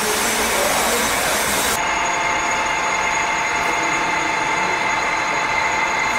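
Juice bottling line running: a steady mechanical noise from the conveyor and filling machinery. About two seconds in, the sound changes abruptly, with less hiss and several steady whines coming through.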